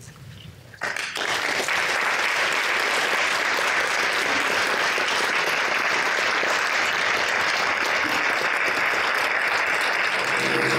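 Audience applauding at the end of a talk. The applause starts about a second in and holds steady, and music comes in right at the very end.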